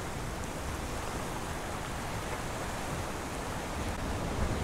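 Steady wind buffeting the microphone over the wash of the sea against the rocks, getting a little louder near the end.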